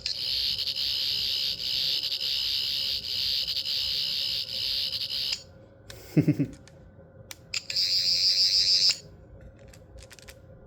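Toy sonic screwdriver playing an electronic warbling buzz for about five seconds, then a shorter second burst near the end, with a few plastic button clicks in between. This is the effect its owner calls the malfunctioning sound.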